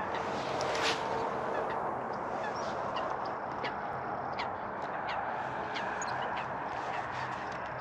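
Waterfowl calling in a steady chatter, with short higher calls scattered through it and one louder call about a second in.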